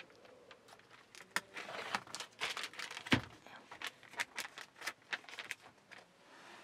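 A car sun visor still in its plastic protective wrap being handled and folded up: the plastic crinkles in an irregular run of small clicks and crackles, with one louder sharp click about three seconds in.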